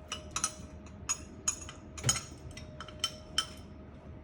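A spoon clinking and tapping against a container about ten times in irregular succession as bouillon paste is spooned out, each clink ringing briefly. A faint steady hum runs underneath.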